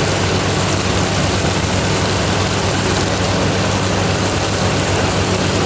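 Sauce and onions sizzling in a steel wok on the stove, an even hiss, with a steady low hum underneath.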